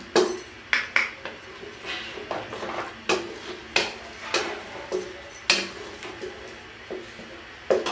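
Wooden spatula stirring chicken pieces in a non-stick kadhai: irregular clacks and scrapes against the pan, about one or two a second.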